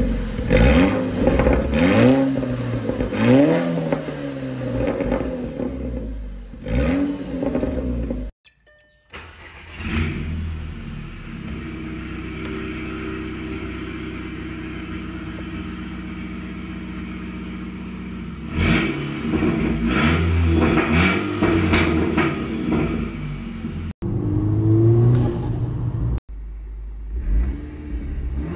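Volkswagen Golf GTI's turbocharged four-cylinder heard through its exhaust, revved in a series of quick rising-and-falling blips. After an abrupt cut it runs steadily, then is revved hard again. The later clips are heard from inside the cabin, and the sound cuts off suddenly between clips.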